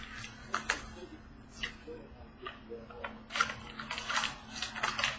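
Trading cards and their packaging being handled and opened: a run of sharp clicks and crinkling rustles, thickest in the last couple of seconds, over a faint steady hum.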